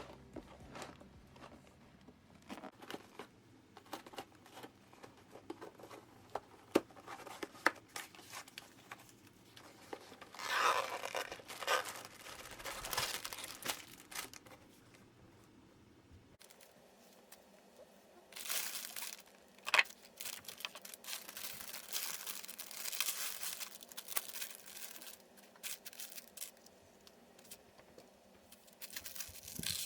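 LEGO set packaging being torn open and crinkled, in two longer stretches, between many light clicks and taps of plastic parts.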